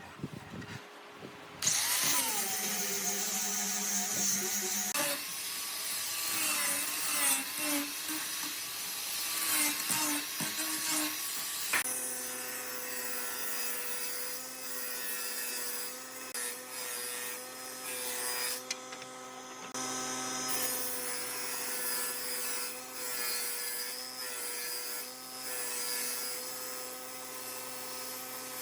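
Electric power tool working wood. Its motor pitch sags and wavers under load through the first half, then it runs at a steady pitch from about halfway.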